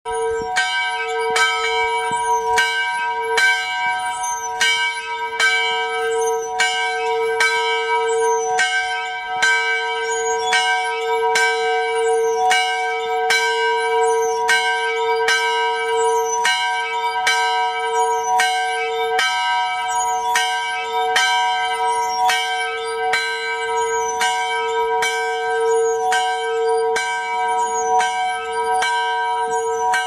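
Church bell rung in steady single strokes, about one a second, each stroke still ringing when the next one lands.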